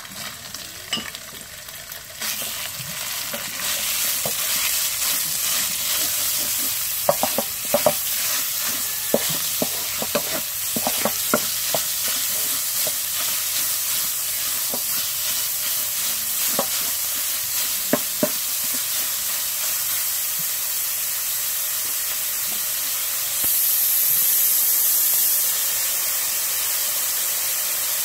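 Minced pork and garlic frying in hot oil in a steel wok, sizzling steadily, the sizzle building over the first few seconds as the meat heats. A wooden spatula scrapes and taps against the wok as it is stirred, in bursts through the middle, and the hiss swells briefly a few seconds before the end.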